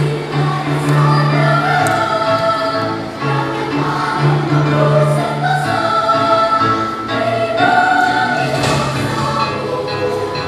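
A children's choir singing, with sustained low notes held beneath the voices.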